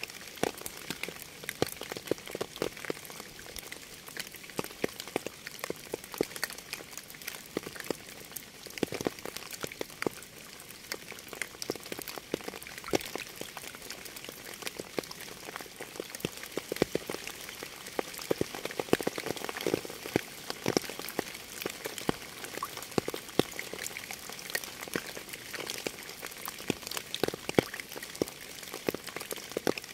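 Rain falling: a steady hiss with many separate drops ticking irregularly.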